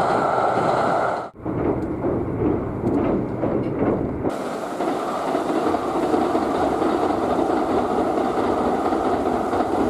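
Kintetsu 80000-series Hinotori electric limited express running over a steel girder bridge, a steady rumble of wheels on rails. About a second in the sound cuts off abruptly and resumes as the running noise heard aboard the train, then changes again after a few seconds to the train passing over a bridge beside the line.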